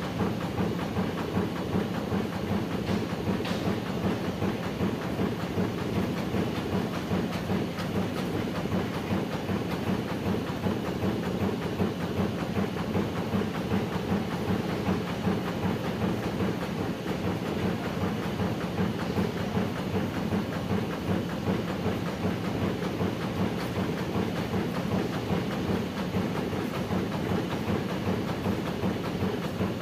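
Amada Vipros 358 King CNC turret punch press running, with a rapid, steady run of punch strokes.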